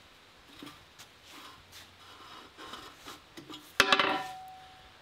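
Faint scraping and handling of steel parts, then about four seconds in a single sharp metal clank that rings on briefly, as a factory bucket pin is worked free of a John Deere 270B backhoe's bucket linkage.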